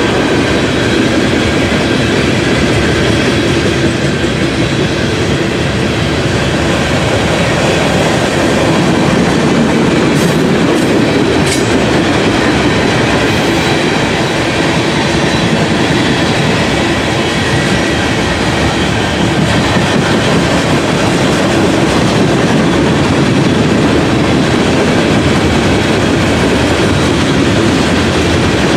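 Freight cars of a long freight train rolling past at speed, a steady loud rumble with wheels clattering over the rail joints.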